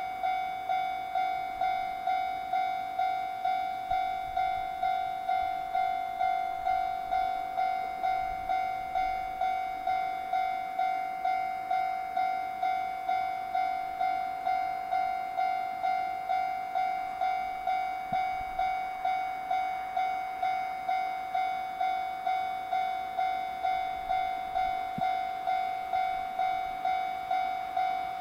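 Japanese level-crossing warning bell ringing: an electronic ding repeated evenly, about one and a half strikes a second, warning that a train is approaching.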